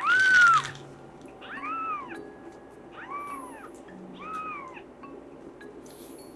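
Young kitten meowing four times, high-pitched calls that each rise and fall in pitch; the first is the loudest and longest.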